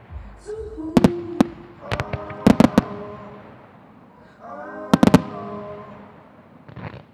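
Firework shells bursting in a display: sharp bangs in quick clusters of two to four, about a second in, around two and a half seconds in and about five seconds in, with a fainter bang near the end.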